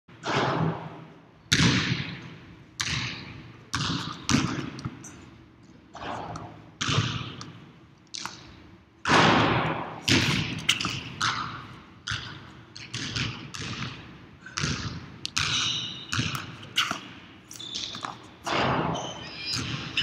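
Irregular thuds against a gym floor, one every second or so, each trailing a long echo around a large hall.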